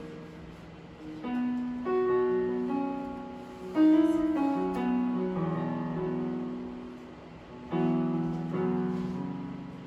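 Slow piano or keyboard music: sustained chords struck every few seconds, each one ringing out and fading.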